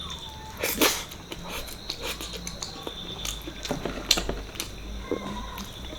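Close-miked eating sounds of mutton paya curry and rice being chewed: wet mouth clicks and smacks, with a few sharper taps, the loudest about a second in and again past the middle.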